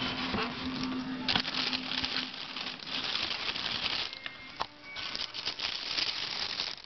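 Tissue paper wrapping in a cardboard sneaker box crinkling and rustling as it is pulled back by hand, with a few soft knocks.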